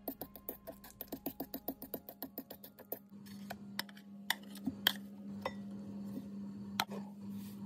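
A fork mashing ripe banana in a stainless steel mixing bowl, its tines tapping the metal in a fast even run of about seven clicks a second. The tapping stops about three seconds in, giving way to a few scattered clinks against the bowl over a steady low hum.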